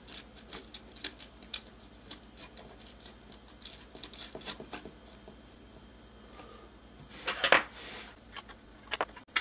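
Small metal clicks and taps of nuts and washers being handled and fitted onto bolts by hand, then a short louder rubbing scrape about seven seconds in.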